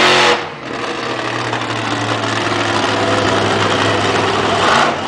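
Monster truck's engine running at a steady low note. A louder rev drops off sharply about half a second in.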